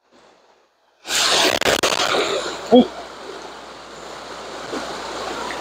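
After about a second of silence, a sudden loud rush of noise starts. It eases after a couple of seconds into the steady rushing of fast-flowing river current.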